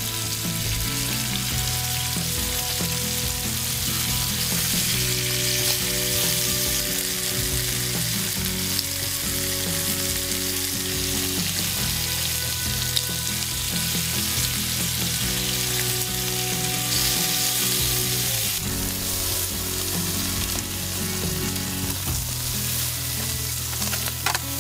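Chicken fillets sizzling steadily in a ridged grill pan on a portable gas stove.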